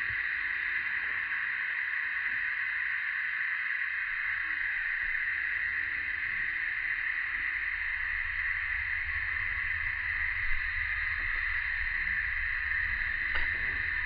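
A steady, even high drone of a summer cicada chorus, with two faint knocks near the end.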